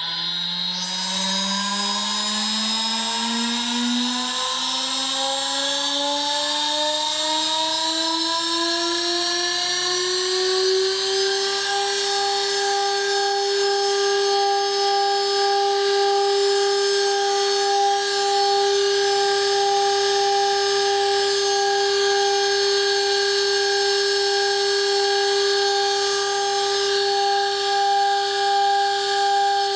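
2.2 kW water-cooled Chinese spindle on a CNC wood router, on its first test run. A whine that rises steadily in pitch for about ten seconds as the spindle runs up to speed, then holds at one steady pitch.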